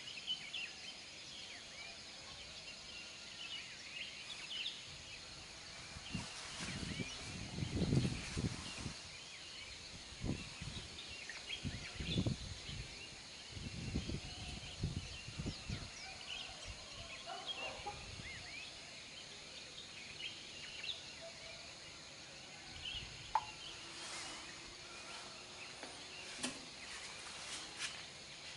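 Outdoor ambience of many small birds chirping over a faint steady high buzz of insects, broken by several low rumbles in the first half, the loudest about eight seconds in.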